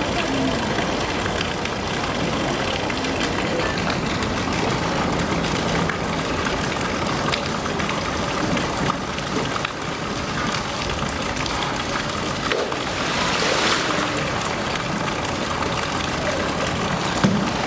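Steady rush of running water in a polar bear's pool enclosure, with one brief louder rush about thirteen seconds in.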